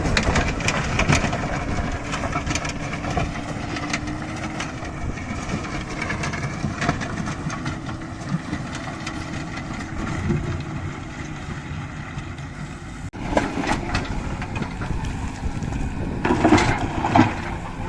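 Diesel engine of heavy work machinery running steadily, with a brief break about thirteen seconds in and louder clanking and clattering near the end.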